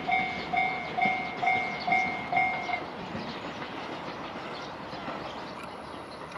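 Level-crossing warning bell dinging about twice a second, stopping about three seconds in as the crossing clears. A steady rumble of train noise carries on after it.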